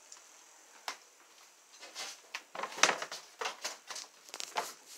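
Irregular soft knocks and rustling from a person walking with a handheld phone: footsteps and handling noise, a single click about a second in, then a busier run of clicks and rustles through the middle of the stretch.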